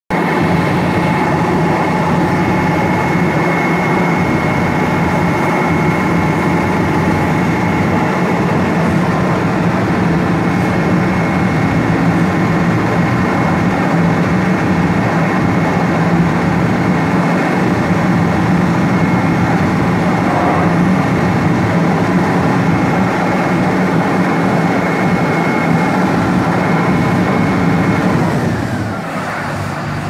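Vögele Super 1800-2 crawler asphalt paver's diesel engine running steadily, with a steady high whine over it. The revs fall away about two seconds before the end.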